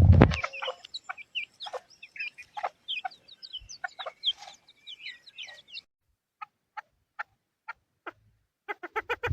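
Chukar partridges calling: a busy string of short chirping and clucking notes, then a few scattered single notes, and near the end a fast, rhythmic run of clucking calls begins. A loud low rumble cuts off about half a second in.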